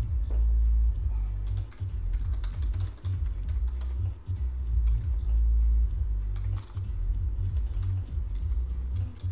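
Typing on a computer keyboard: scattered key clicks, in clusters about two seconds in and again near seven seconds, over a loud, uneven low bass throb.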